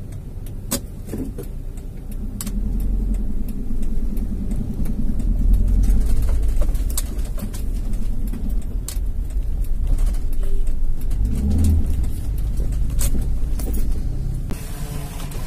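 Car driving on a rough road, heard from inside the cabin: the engine and tyres make a steady low rumble that rises and falls, with scattered sharp knocks and rattles. Near the end a power window starts to wind down.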